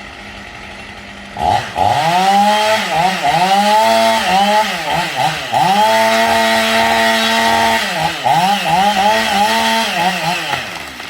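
A small engine idling briefly, then revved up and down over and over, held at high revs for about two seconds in the middle before more quick revs.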